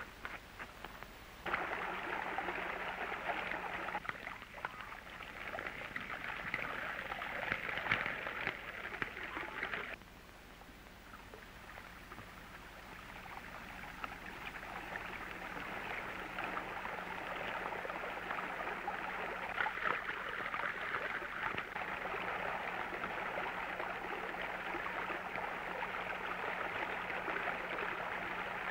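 Rushing water, a steady noisy rush that starts abruptly about a second and a half in, drops suddenly about ten seconds in, then builds up again.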